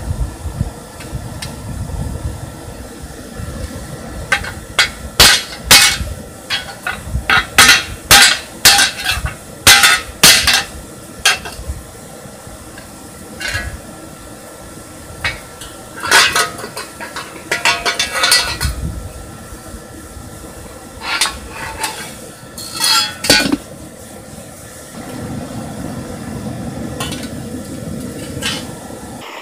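Hand hammer striking hot steel plate on an anvil to shape a small shield: a long series of sharp, ringing metal blows in irregular groups, loudest in the first half, stopping about four-fifths of the way through. A low steady rumble runs under it at the start and again near the end.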